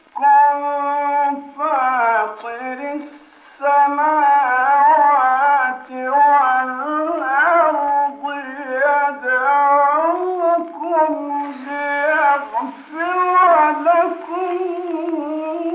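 A solo male voice chants Qur'anic recitation in long, melismatic phrases, with a brief pause for breath about three seconds in. The recording is old and narrow in range, so it sounds muffled.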